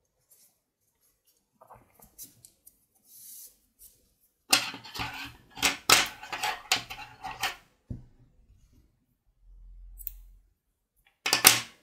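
Yarn scraping and rustling through crochet stitches in a run of quick scratchy strokes as the tail is worked in and pulled through by hand. Near the end, a brief sharp snip of small scissors cutting the yarn.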